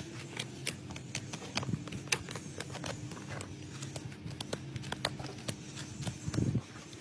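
Irregular sharp clicks and taps from work on a horse's hoof, over a low steady hum, with a louder low thump about six and a half seconds in.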